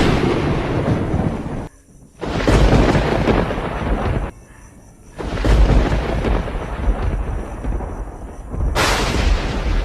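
Thunder: a sharp clap at the start and fresh claps about two, five and nine seconds in, each trailing into deep rumbling. The rumble drops off abruptly twice between the claps.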